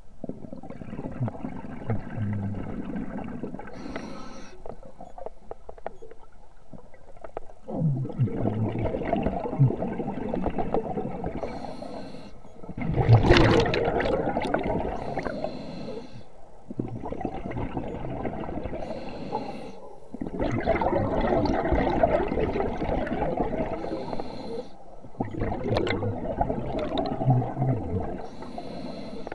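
Scuba regulator breathing underwater: a short hiss on each inhale, followed by several seconds of bubbling as the exhaled air escapes, repeating every five to seven seconds. The loudest burst of bubbles comes about halfway through.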